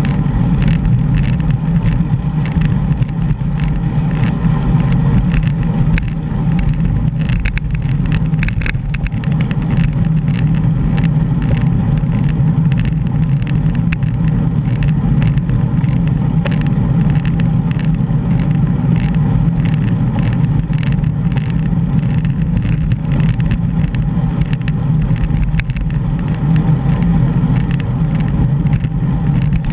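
Wind and road noise on a bicycle-mounted GoPro while riding: a steady deep rumble, with frequent small clicks and rattles from the bike and mount over the road surface.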